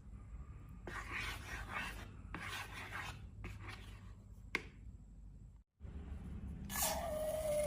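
Rubbing and scraping strokes of slime being worked by hand, in bursts of about a second, with a sharp click about four and a half seconds in. After a brief cut to silence, a louder scraping with a steady squeaky tone near the end.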